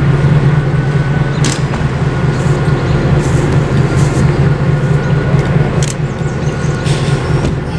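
Diesel locomotive running with a loud, steady low hum, with a few short sharp clicks about a second and a half in and again about six seconds in.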